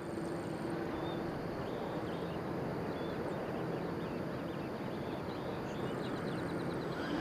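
Steady outdoor rushing noise, with faint short bird chirps now and then.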